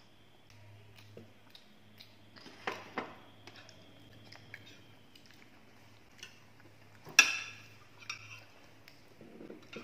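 Metal spoons clinking and scraping on plates as food is scooped up, a few scattered clicks with the loudest clink about seven seconds in, along with chewing.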